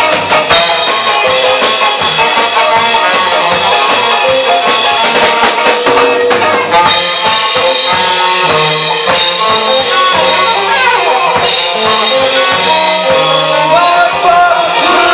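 Live ska band playing loud: saxophone over drum kit, electric guitars and bass guitar.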